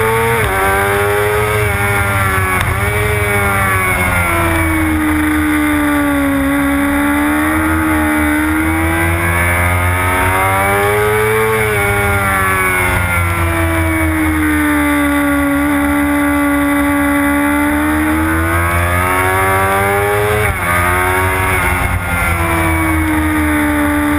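Sports motorcycle engine heard onboard at track speed. Its pitch rises and falls through the bends, with a few sudden drops where it changes gear.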